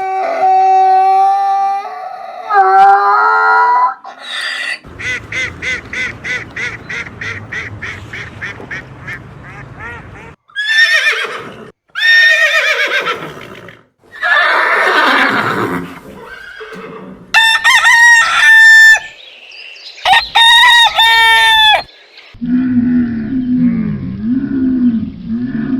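A series of different animal calls, one after another with short gaps between them: a steady call, a fast pulsing stretch, sweeping calls, high repeated calls and a lower call near the end.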